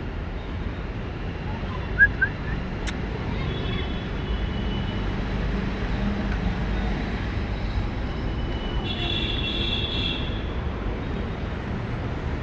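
Steady low outdoor background rumble, with two short high chirps about two seconds in and a brief burst of high twittering calls about nine seconds in.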